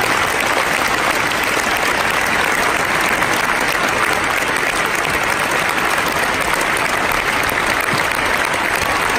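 Large arena audience applauding, a steady, dense clapping that does not let up.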